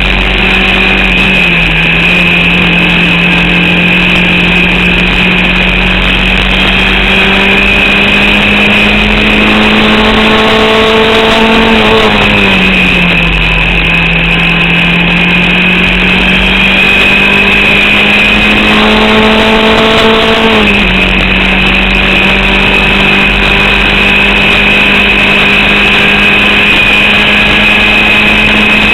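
Onboard sound of a Formula Vauxhall 8v race car's four-cylinder engine under load. Its pitch climbs slowly and drops sharply three times as the revs fall back. The engine is misfiring and down on power from an alternator/battery fault, with only about 4500 rpm available.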